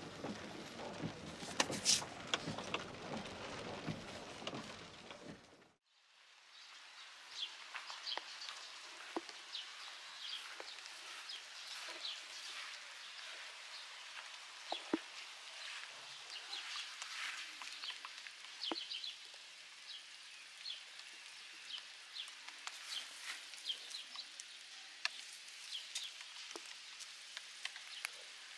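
Rain falling: a dense, even rain hiss for the first six seconds, which breaks off abruptly, followed by a lighter patter with many separate drips ticking.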